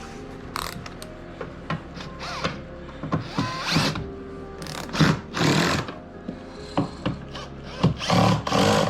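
Cordless drill-driver running in several short spurts, driving the side-plate screws into the trolling motor mount's aluminium base plate. The longest and loudest spurts come in the second half.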